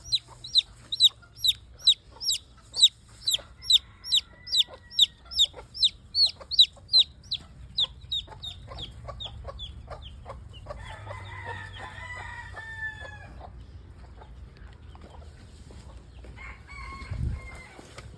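A young chick peeping: a rapid series of short, high, falling peeps about two a second that fade out about halfway through, followed by a looser burst of softer calls.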